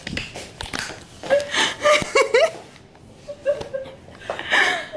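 People laughing and giggling in short bursts, with a thump right at the start as the camera is knocked about.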